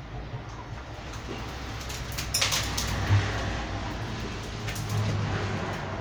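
Scraping and rustling as a juniper's root ball and substrate are worked into a bonsai pot, growing louder about two and a half seconds in, over a low steady hum.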